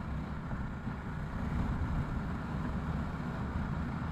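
Yamaha R15M motorcycle riding at a steady road speed: its single-cylinder engine running under wind noise on the microphone.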